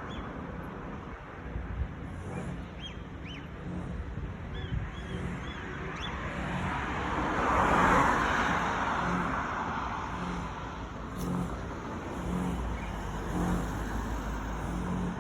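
A car passing on the street, its road noise swelling to a peak about eight seconds in and then fading. A few faint, short bird chirps come in the first few seconds.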